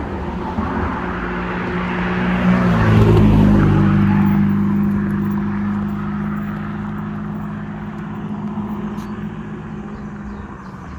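A motor vehicle's engine running, its pitch shifting a little and growing loudest about three seconds in, then slowly fading away.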